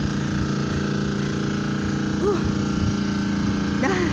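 Steady engine drone at one even pitch.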